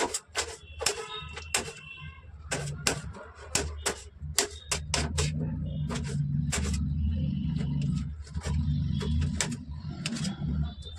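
Kitchen knife slicing a tomato on a cutting board, the blade tapping the board in quick, irregular knocks. About halfway through, a low hum comes in and runs under the taps.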